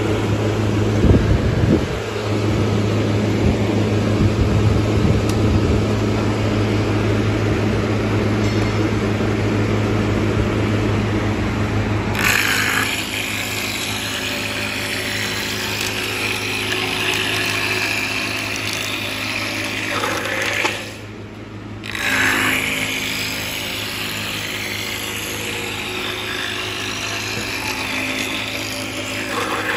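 MC9080B wooden round-rod making machine running: its motor hums steadily at first. About twelve seconds in, a square wooden blank feeds through the rotary cutter head and a loud cutting noise sets in as the blank is turned into a round rod. The cutting stops for about a second about two-thirds of the way through, then resumes.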